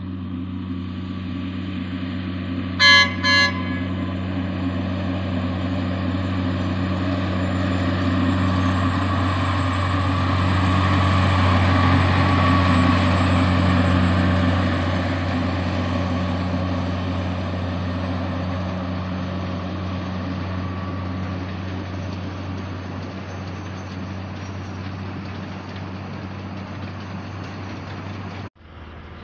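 Sugar cane train's diesel locomotive sounding two short horn toots about three seconds in, then its engine running louder as it draws level and passes, followed by the rumble of loaded cane bins rolling by. The sound cuts off suddenly near the end.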